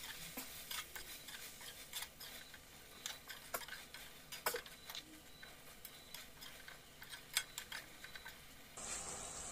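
Metal spoon stirring peas and potatoes in a metal kadai over the gas flame, with scattered light clicks and scrapes of the spoon against the pan over a faint hiss. A steadier hiss comes in near the end.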